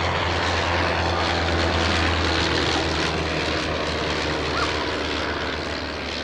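Sopwith Camel's rotary engine and propeller droning steadily as the biplane flies past, swelling slightly about two seconds in and then easing.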